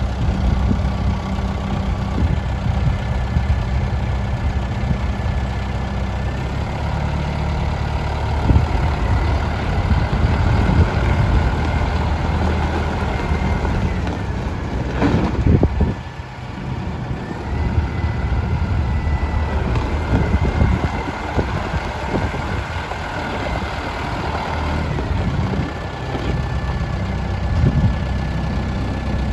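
Kubota M95S tractor's diesel engine running steadily at idle, with a thin steady whine over the low rumble.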